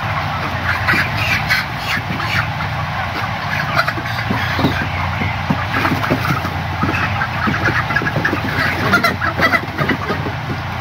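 A large flock of 35-day-old broiler chickens clucking and chirping continuously, over a steady low hum.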